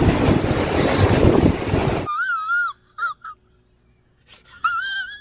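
Strong wind buffeting the microphone for about two seconds, then cut off abruptly. A short inserted film clip follows, quiet apart from a few brief, high, wavering tones.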